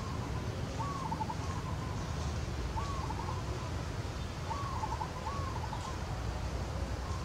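A bird calling about five times, each call a short note followed by a few quick clipped notes, over a steady low rumble.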